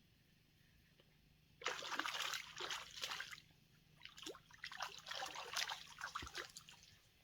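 Water splashing in two spells, the first about two seconds long and the second nearly three: a small largemouth bass thrashing at the surface as it is landed.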